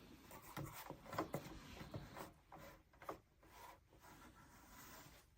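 Faint rubbing and scraping of objects being handled, with a string of short scrapes and light knocks.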